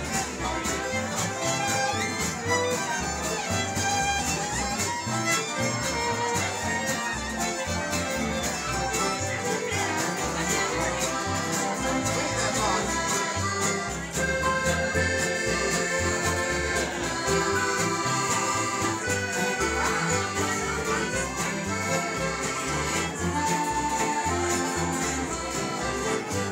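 Acoustic country string band playing a lively tune together: fiddle and piano over strummed acoustic guitar, mandolin and a steady upright bass beat.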